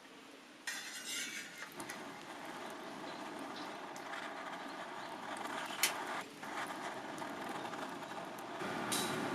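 Wood fire burning in a steel fire pit: a steady hiss with scattered crackles and pops, starting abruptly under a second in, with one sharp pop near six seconds.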